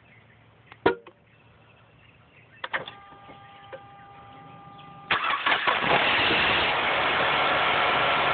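Mazda CX-7 turbocharged 2.3-litre four-cylinder cranking and starting about five seconds in. A brief hard metallic clatter lasts about a second at start-up, then the engine settles into a steady idle. Before the start there is a sharp click, then more clicks and a steady tone while the ignition is switched on.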